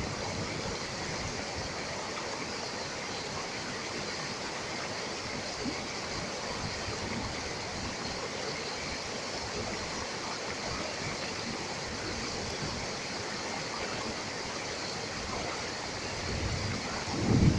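Shallow rocky stream rushing steadily through riffles and around boulders, with a brief low rumble near the end.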